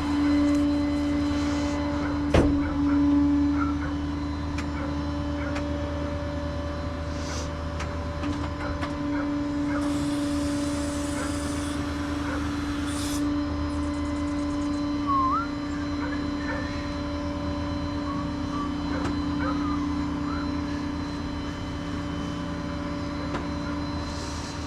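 Tow truck running with a steady, unchanging droning hum. A single sharp click comes about two seconds in, and a brief hiss comes near the middle.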